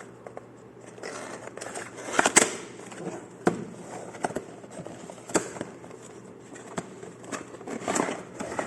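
Cardboard product box being opened and handled: rustling and scraping of packaging, with scattered sharp clicks and knocks, the loudest about two seconds in.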